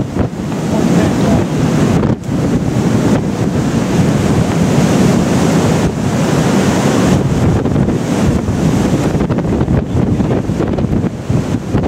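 Strong wind buffeting the microphone with a loud, steady rush, over the wash of breaking seas along the hull of a square-rigged sailing ship running before a gale.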